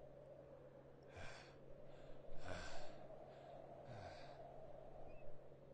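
Faint, heavy breathing of an out-of-breath man: three labored breaths, a little under a second and a half apart.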